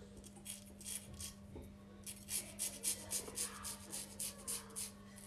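Emidio D'Astolfo 8/8 straight razor scraping through stubble on the cheek and jaw in a quick run of short strokes, about five a second, with a steady low hum underneath.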